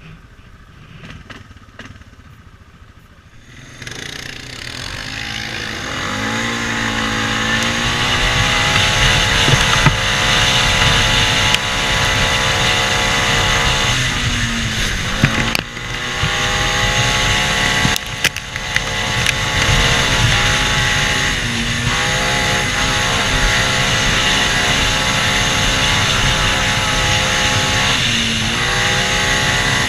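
ATV engine, quiet at a slow trail pace at first, then revving up about six seconds in and running hard at speed. The revs dip briefly and climb back three times as the throttle eases and opens again.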